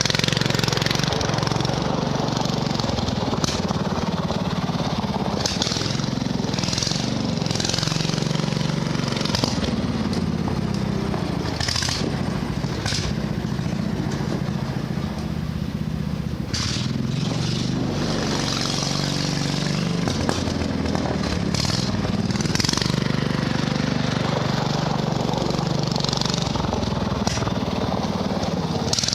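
Riding lawnmower's small engine running steadily while the mower is driven, with frequent short bursts of higher hiss or rattle over it.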